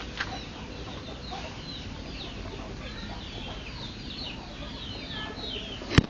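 Birds calling with many short, quick chirps over steady outdoor background noise, and a single sharp knock near the end.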